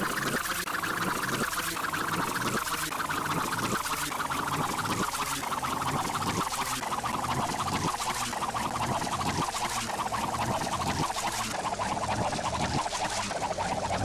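The SpongeBob Krabby Patty flipping sound effect played in reverse: a sped-up flipping sound that comes out as a rapid, fluttering cartoon whirr. It repeats about once a second and slowly sinks in pitch.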